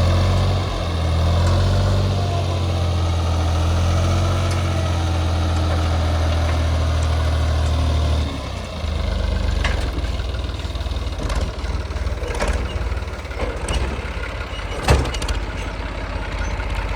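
Heavy diesel engine running steadily. About eight seconds in, its sound drops lower, and a series of sharp clanks and knocks follows, the loudest about fifteen seconds in.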